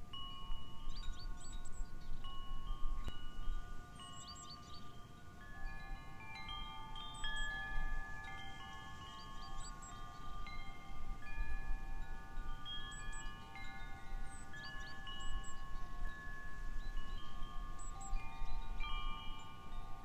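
Wind chimes struck by the wind, ringing in many overlapping, long-held tones that keep changing as new strikes come in, over a low rumble underneath.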